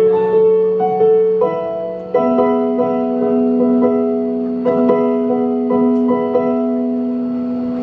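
Casio stage piano playing a slow solo piano introduction: sustained chords, changing about a second and a half and two seconds in.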